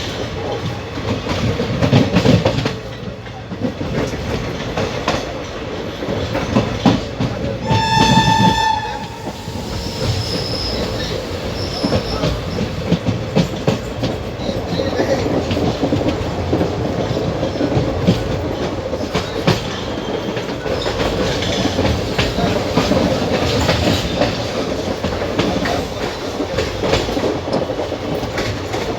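Passenger train heard from inside an ICF coach at speed: steady running rumble with the clickety-clack of wheels over rail joints. About eight seconds in, the WAP-7 electric locomotive's horn sounds once, a single high note for about a second.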